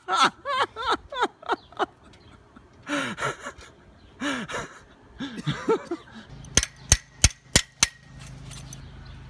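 Indistinct talk, then five sharp clicks about a third of a second apart, over a steady low hum.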